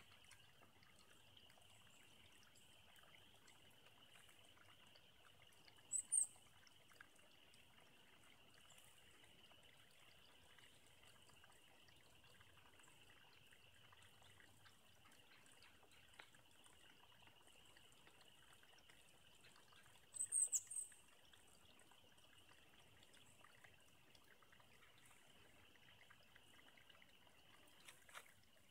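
Shallow rocky creek trickling faintly over stones. Brief high chirps break in about six seconds in, and again as a short cluster around twenty seconds in.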